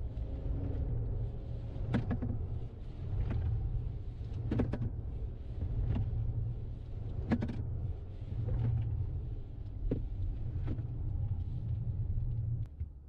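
Steady low rumble of a car driving, heard from inside the cabin, with a few short sharp knocks scattered through it.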